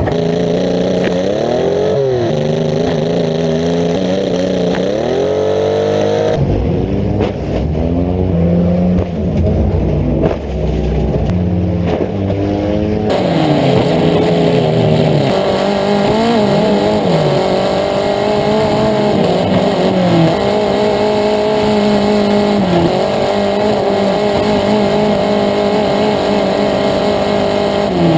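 Demolition derby car engines revving up and down under hard throttle, heard up close from a camera mounted on the car's hood. The sound changes abruptly twice, about six and thirteen seconds in, as a different car's engine takes over.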